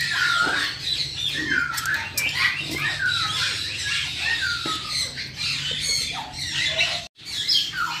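A crowd of caged aviary birds squawking and chattering together: many short calls, each sliding down in pitch, overlapping without pause. The sound drops out briefly about seven seconds in.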